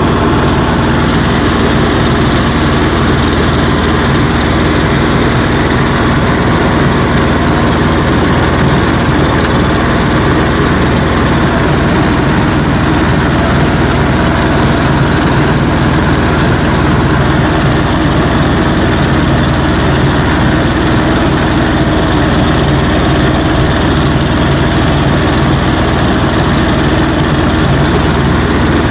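Engine of a BJR Falcon 40 articulated compact tractor running steadily, heard close up from on board, while its rear rotovator tills the soil. The loud, even running holds without change throughout.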